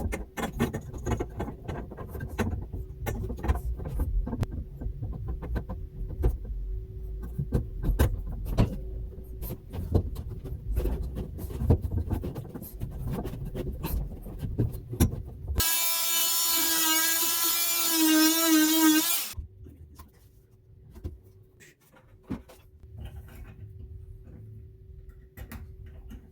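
Clicks, knocks and scraping of hand work with tools, then a small power tool's motor, such as a cordless drill, whining for about three and a half seconds with a wavering pitch, followed by a few quieter clicks.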